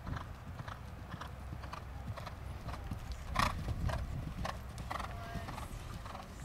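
A horse cantering on a sand arena: a steady rhythm of muffled hoofbeats, with one louder strike about three and a half seconds in.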